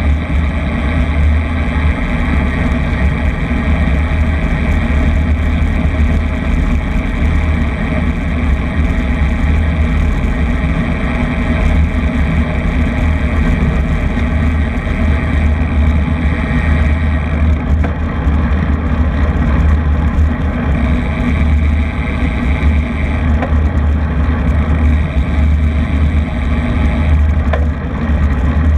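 A vehicle travelling on the road: steady engine and road noise with a heavy low rumble throughout, and no sudden events.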